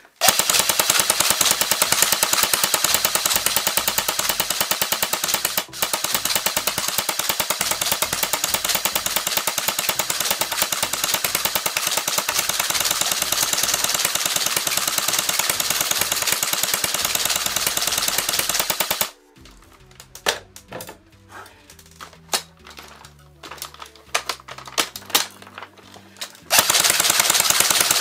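Airsoft gun firing BBs on full auto in a long unbroken stream of rapid shots, with a brief break about six seconds in. The firing stops about nineteen seconds in, leaving a lull of scattered clicks, then resumes in a fast stream near the end.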